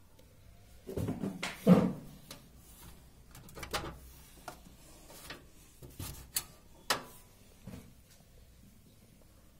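Scattered knocks and clicks of handling, a cluster about one to two seconds in with the loudest knock near the end of it, then single sharp clicks and taps every second or so.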